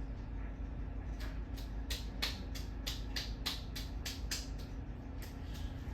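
Hampton Bay Huntington III ceiling fan running, with a steady motor hum and a regular tick about three times a second, loudest in the middle.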